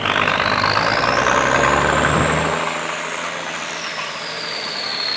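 Siren wailing, its pitch rising for about two seconds and then slowly falling, over the engine of an ex-military six-wheel-drive fire truck driving past. The engine is loudest in the first half and fades after that.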